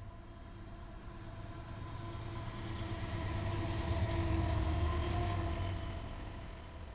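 Freight train rolling past: a low rumble of wheels on rails that swells to a peak a little past the middle and then fades, with a steady droning tone over it.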